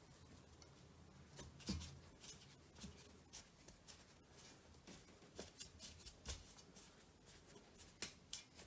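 Faint, irregular rustling and scraping of chicken strips being tossed and pressed by hand in a steel bowl of spiced flour, working the coating into crumbs. A soft knock about a second and a half in.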